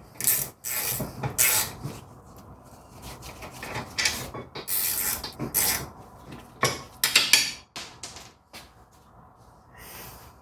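Wrench working a 15 mm brake caliper bracket bolt loose: a series of irregular metallic scrapes and clicks, some longer rasping strokes among them.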